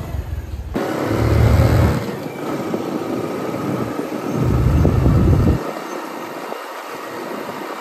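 Small motorcycle riding along a road, its engine running under a steady rush of noise. Two loud low surges come in, the second breaking off a little past halfway.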